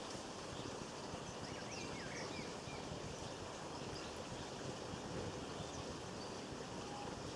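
Small garden birds giving a few faint, short chirps, mostly around two seconds in, over a steady rushing background noise.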